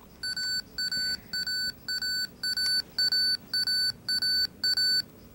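Sony Handycam Video Hi8 camcorder's warning beeper sounding a steady string of short, high beeps, about two a second. It is the camcorder's malfunction alarm, given along with its eject warning and self-diagnosis code C:31:11.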